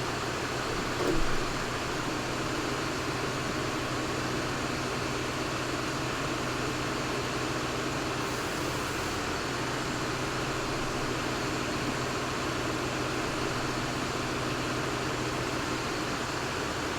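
Steady machine hum and hiss like a fan or blower running, unchanging throughout, with a brief light knock about a second in.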